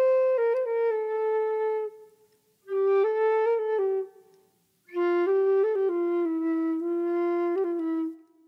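Solo flute playing a slow melody in three phrases separated by short pauses, mostly held notes with small ornamental turns between them.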